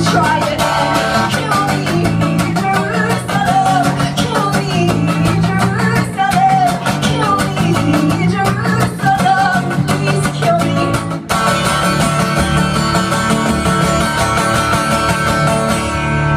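A woman singing over a strummed acoustic guitar in a live performance. About eleven seconds in the voice stops and the guitar carries on strumming alone.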